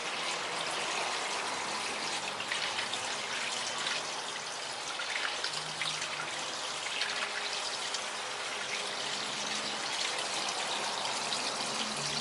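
Small pond waterfall running: pumped water spurting out of a hole in a rock and splashing steadily onto the rock, plants and pond surface. The splashing breaks up the water and puts air into it, oxygenating the pond.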